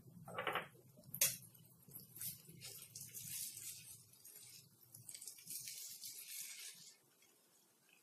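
Red silicone spatula and spoon tossing and mixing boiled noodles with sauced vegetables in a nonstick pan: faint scraping and rustling in two spells, with a sharp knock about a second in.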